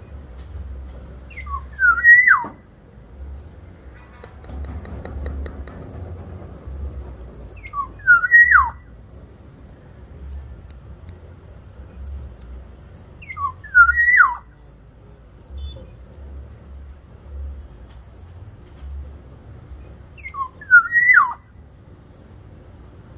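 Black-naped oriole giving its loud fluting whistle four times, about six seconds apart. Each phrase is a few quick rising liquid notes ending in a downward slur.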